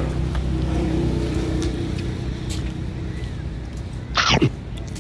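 A motor vehicle's engine running close by, a low steady hum that fades over the first few seconds. About four seconds in comes one short, loud squeal falling sharply in pitch.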